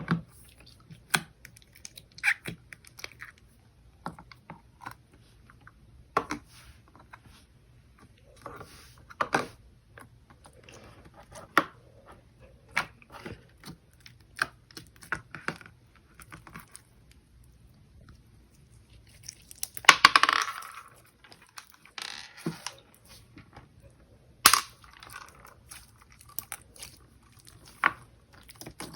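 Purple bead slime being squished and poked by hand, giving irregular sticky pops, clicks and crackles, with a longer squelching burst about two-thirds of the way through.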